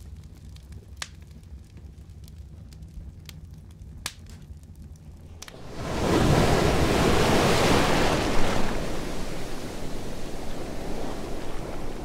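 Log fire crackling in a fireplace, with scattered sharp pops over a low rumble. A little before halfway it gives way to ocean waves: a loud surge of wash swells up, then settles into a steady rush of water.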